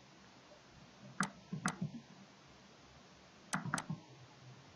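Computer mouse button double-clicked twice: a pair of quick clicks about a second in and another about three and a half seconds in, over a faint steady hiss. These are double-clicks opening folders in a file browser.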